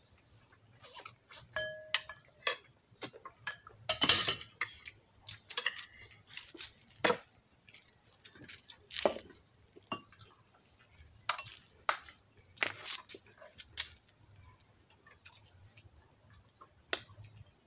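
Metal spoons clinking and scraping against plates and a bowl while people eat, in irregular short taps, with a louder clatter about four seconds in.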